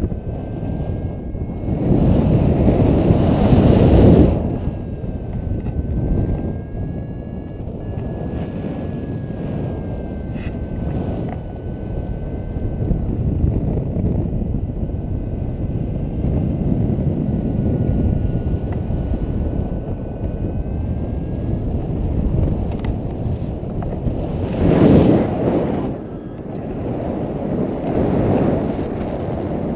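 Wind buffeting a GoPro's microphone in flight, a steady rumbling rush that swells in gusts about two to four seconds in and again near the end.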